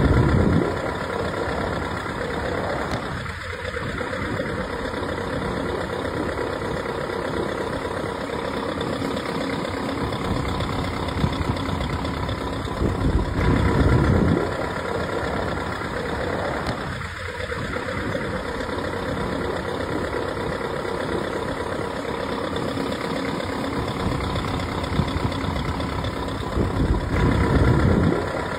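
A large truck engine runs steadily. It swells louder briefly at the start and again about every 14 seconds, repeating exactly like a looped recording.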